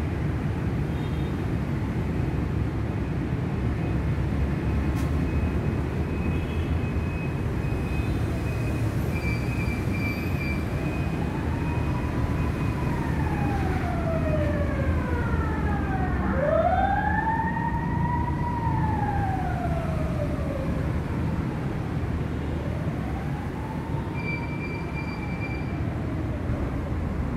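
Steady low rumble with a siren wailing over it partway through, in several slow rising-and-falling sweeps.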